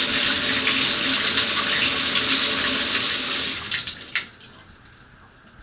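Hot water running steadily from a bathtub faucet, flushing drain cleaner down a slow tub drain, then turned off about three and a half seconds in, ending with a small click.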